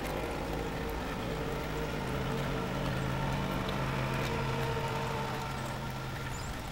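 Steady hum of a small engine running at an even speed, over a light haze of noise.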